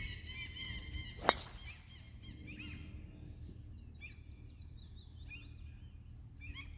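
A single sharp crack of a driver striking a golf ball off the tee, about a second in. Birds chirp throughout.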